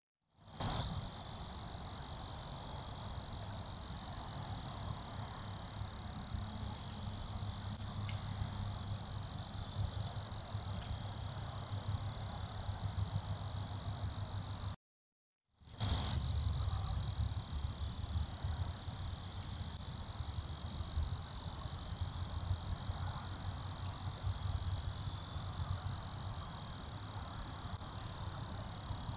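Steady night background through a trail camera's microphone: a constant high-pitched whine over hiss and an uneven low rumble. It breaks off into about a second of silence halfway through, where one recording ends and the next begins.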